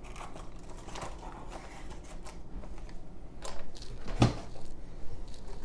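Cardboard box and paper instruction booklet being handled: soft rustling, then a few knocks about three and a half seconds in, the loudest about four seconds in as the box is moved aside.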